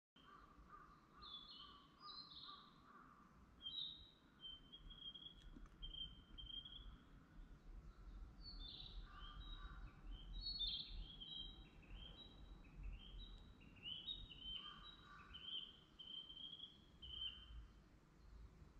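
Small songbirds singing in woodland: a steady stream of quick high chirps and short descending runs of notes, with a lower-pitched call coming in a few times, over a faint low rumble.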